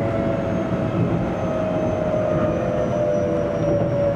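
Keio Series 8000 train's GTO-thyristor VVVF inverter whine heard inside the passenger car over the rumble of wheels on rail. Its tones slide slowly and steadily down in pitch, as they do when the train is slowing under braking.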